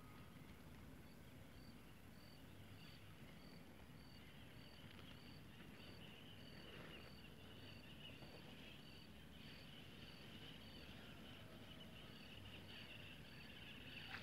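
Faint insect chorus: a cricket-like chirp pulses steadily at a high pitch, about twice a second, over a thin hiss of other insects.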